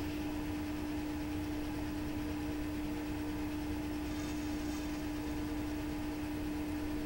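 Metal lathe running, its spindle and motor giving a steady hum with one strong tone, while the tool turns an aluminium silencer part. A brief higher hiss rises about four seconds in.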